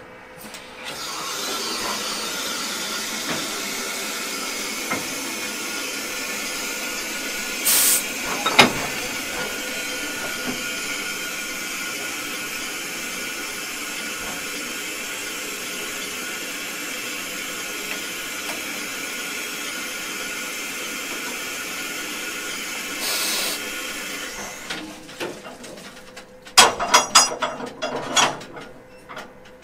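Steady loud hiss from the Bavarian GtL 4/4 tank locomotive 98 886 while it is being coupled to its coaches, with two brief sharper blasts and a single click. The hiss stops, and near the end come a few metallic clanks and rattles of the coupling gear being handled between the engine and the coach.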